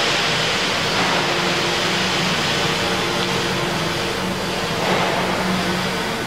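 CLOOS ROMAT 350 welding robot cell running: a steady, even noise with a low hum underneath.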